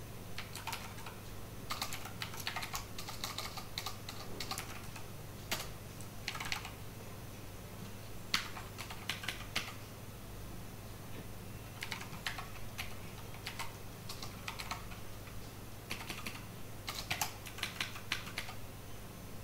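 Computer keyboard typing in short runs of keystrokes with pauses between, over a low steady hum.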